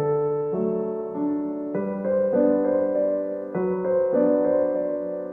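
Background piano music: soft held chords that change every second or so.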